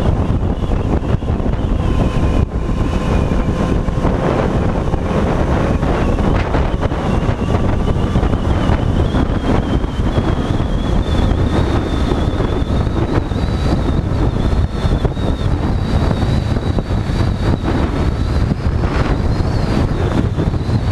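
Heavy wind rushing over a helmet-mounted action camera's microphone at road speed, over the steady running of the motorcycle underneath. A faint whine slowly rises in pitch through the middle.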